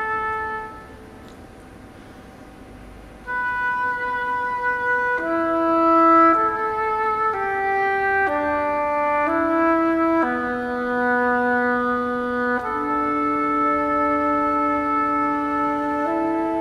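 Flute and oboe playing a duet: a held note dies away, a pause of about two and a half seconds, then one instrument re-enters on a sustained note and the other joins about two seconds later, the two moving together in long held notes.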